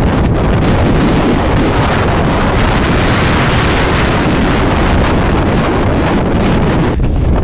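Strong mountain wind blowing across the camera microphone: a loud, steady rush of noise that drops back briefly near the end.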